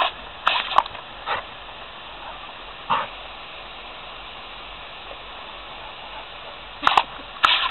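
Labrador retriever barking in short, sharp barks: a quick run in the first second and a half, one about three seconds in, and a few more near the end.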